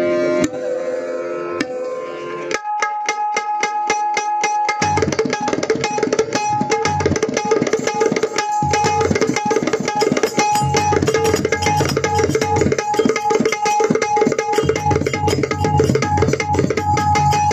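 Harmonium melody alone at first, then tabla strokes come in about two and a half seconds in, joined by deep bass strokes of a pakhawaj from about five seconds: the instrumental opening of a Marathi gondhal devotional song.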